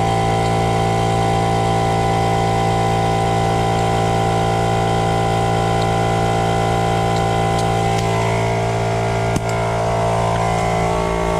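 Small air compressor running steadily as it inflates a spare tire, with one sharp click about nine seconds in.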